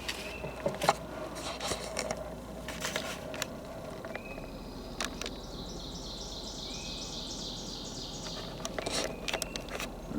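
Footsteps in forest litter, with scattered sharp cracks of sticks and twigs, mostly near the start and near the end. A high, steady insect trill runs from about four seconds in to about nine, and a few brief, high bird chirps come in between.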